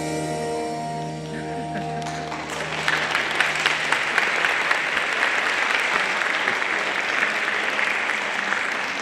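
The music's final held chord rings on and fades, and about two and a half seconds in a hall audience breaks into applause that carries on steadily, many hands clapping.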